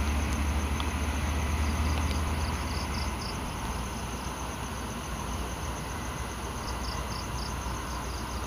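Crickets chirping in short groups of rapid high pulses, over a low rumble that fades out about three seconds in.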